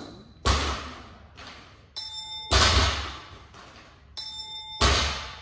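A barbell loaded with bumper plates thudding down onto a rubber gym floor three times, about two seconds apart, as reps are done. A short electronic chime of several steady tones sounds twice, each just before a thud.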